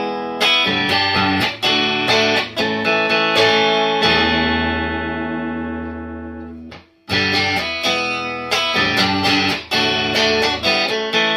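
Electric guitar played through an amp, with the bass contour knob turned up: a short picked phrase of notes and chords ends on a chord left ringing and fading. It is damped just before the seventh second, and the phrase starts again with the knob set a step lower.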